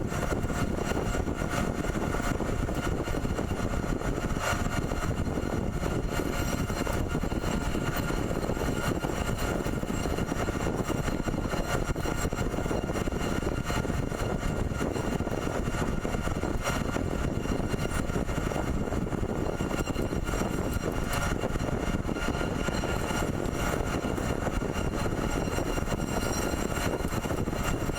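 CNC pipe threading machine running steadily, a constant mechanical noise with faint steady tones over it.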